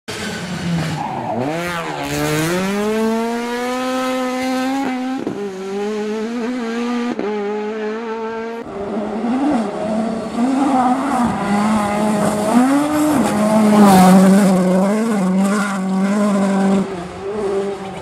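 Ford Puma Rally1 WRC car's 1.6-litre turbocharged four-cylinder engine at full throttle on a gravel stage. Its note climbs, drops at two quick upshifts, then rises and falls with the throttle as the car nears. A sharp crack about fourteen seconds in is the loudest moment, and the sound falls away near the end.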